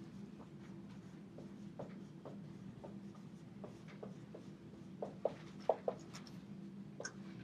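Dry-erase marker writing on a whiteboard: a run of short strokes and squeaks, the loudest few about five to six seconds in, over a steady low hum in the room.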